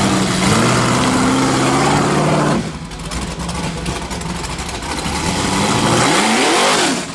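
Rock bouncer buggy's engine revving hard as it climbs a steep hill. The revs climb, drop off suddenly about two and a half seconds in, and climb steeply again near the end.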